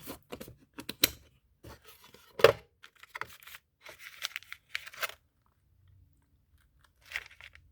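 A tap and die set and its case being handled in a toolbox drawer: scattered clicks, clatters and short scrapes, a pause of about two seconds, then a few more clicks.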